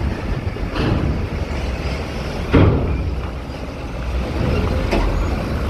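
Heavy vehicles running, with wind noise over a steady low rumble. Three sharp knocks come through it, the loudest about two and a half seconds in.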